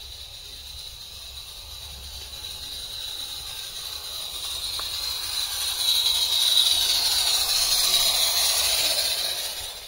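A 16mm-scale live-steam model locomotive hissing steam as it runs with its train, getting steadily louder as it comes close over the bridge, then cutting off suddenly at the end.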